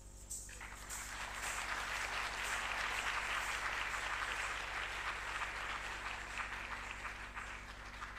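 Audience applauding at the end of a dance performance, starting about half a second in, building up and then dying away near the end.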